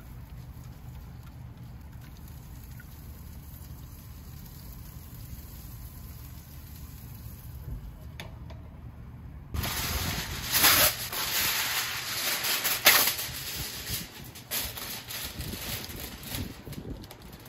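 Aluminium foil crinkling and rustling as it is folded and pressed around a cooked pork butt, starting suddenly about halfway through with several sharp crackles. Before that, only a low steady hum.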